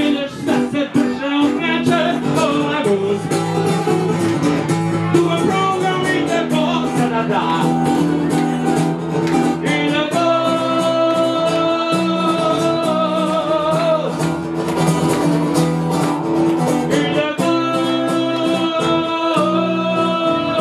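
Live song: a man singing into a microphone over a strummed, amplified acoustic guitar. The music has long held notes about halfway through and again near the end.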